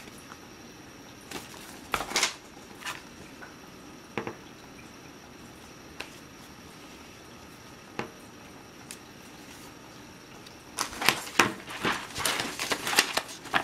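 Handling noise from a paper leaflet, a tablet and its cardboard box being picked up and turned over. There are a few isolated light taps and rustles, then a busier run of rustling and bumps in the last few seconds.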